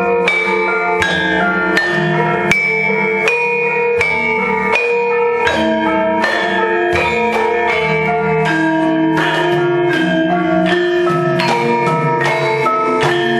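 Javanese gamelan playing: bronze metallophones and gongs ring in overlapping struck notes over a steady beat of sharp strikes, about one every three-quarters of a second.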